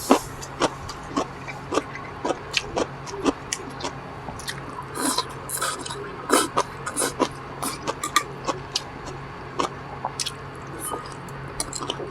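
Close-miked chewing and mouth sounds of someone eating: many short, crisp crunches and wet clicks, irregular at a few a second.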